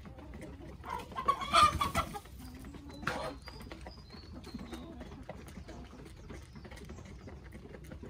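Flock of chickens clucking while feeding, with a loud burst of calling about a second and a half in and a shorter call about three seconds in. Many light taps of pecking fill the rest.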